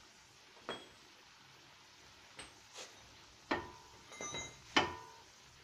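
Metal parts clinking as hands and tools work on a car's front shock absorber and strut mounting: a string of sharp clinks, a few of them ringing briefly. The loudest come about three and a half and nearly five seconds in.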